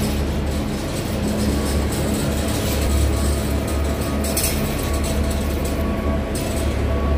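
Steel platform cart rolling over a concrete warehouse floor: a steady low rumble from its wheels, with a brief knock about four seconds in.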